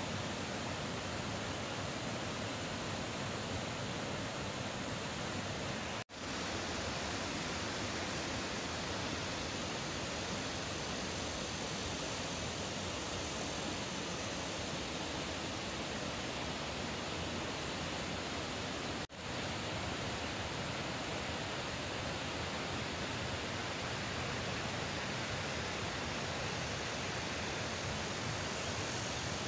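Floodwater rushing, a steady even wash of noise. It cuts out for an instant twice, about six and nineteen seconds in.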